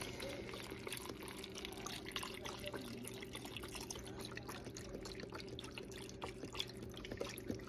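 Vegetable broth poured from a carton into a stainless steel pot of diced potatoes, carrots and shrimp: a steady trickling stream splashing onto the food, with a faint steady hum underneath.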